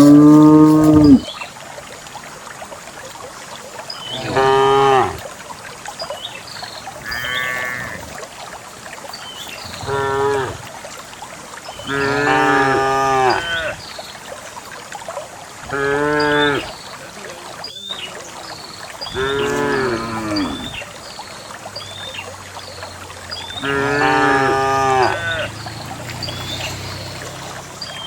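Cows mooing one after another, about eight calls in all, each lasting one to two seconds and coming a few seconds apart.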